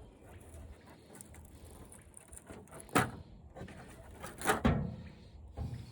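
Plastic and metal parts of a flat-screen TV being handled during disassembly: low rustling, a sharp click about three seconds in, and a short clatter about a second later.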